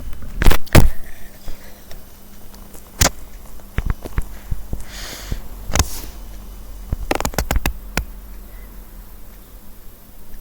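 Handling noise: a scattered series of sharp clicks and knocks, a small cluster of them about seven seconds in, with a brief soft rustle in the middle, over a faint steady hum.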